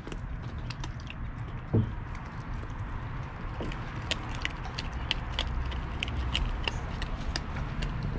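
Lycan Shepherd puppy chewing a whole raw fish: irregular wet crunches and clicks as its teeth work through the scales and bones. One dull thump about two seconds in.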